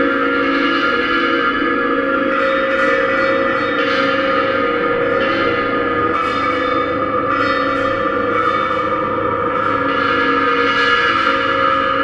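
Bossed kettle gongs struck with a mallet every second or two. Their ringing overlaps into a sustained chord of several steady pitches.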